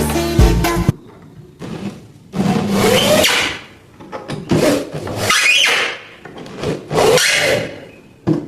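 Backing music stops about a second in. It is followed by a series of long scraping strokes of a hand tool on wood, four or five in all, each lasting under a second, with short pauses between them.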